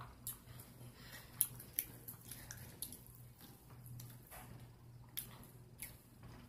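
Close-up wet chewing and mouth sounds: irregular smacks and clicks, over a faint steady low hum.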